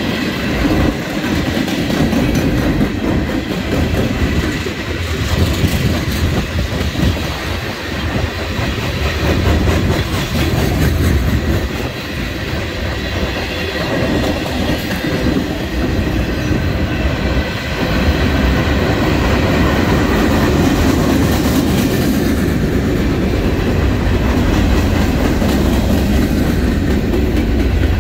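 Mixed freight cars (tank cars, gondolas, centerbeam flatcars) rolling past: a steady, loud rumble of steel wheels on rail, with repeated clickety-clack as the wheelsets cross rail joints.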